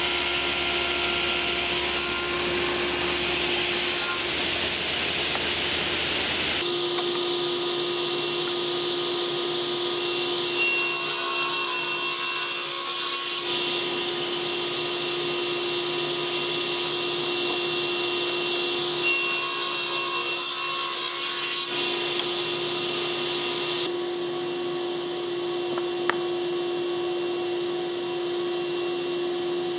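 Woodworking machines running and cutting solid wood: first a table saw cutting old school-desk tops, then a machine hums steadily with two short, louder cutting passes a few seconds apart.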